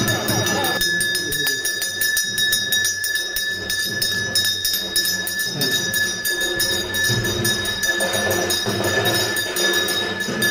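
Hand bell rung rapidly and continuously during a puja procession, a steady ringing tone over fast, even strikes.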